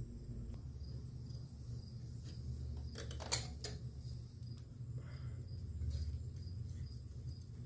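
A few sharp metal clicks about three seconds in, one louder than the rest, from a bolt and hand tools being handled on a small engine under rebuild. A steady low hum runs underneath.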